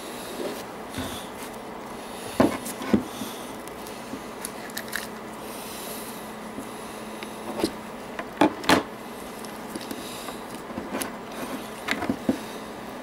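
Handling noise of a figure skate and a pocket knife in gloved hands: sharp clicks and knocks, two about two and a half seconds in, two more about eight and a half seconds in, and a few near the end, over a steady low hum.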